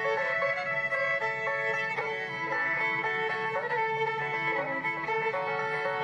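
Banjo music playing steadily, with held notes alongside the picked ones.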